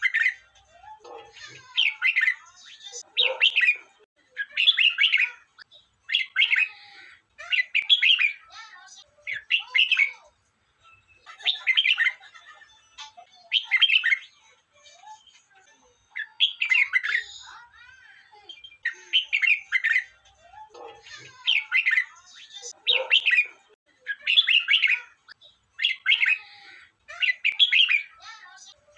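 Red-whiskered bulbul singing: short, bright warbled phrases repeated every one and a half to two seconds, with brief pauses between them.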